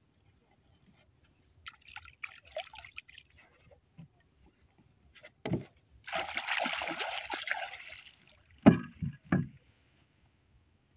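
Water splashing and sloshing at a small wooden boat for about two seconds, with scattered knocks on the boat's wooden planks; the loudest is a sharp knock near the end, followed by a second one.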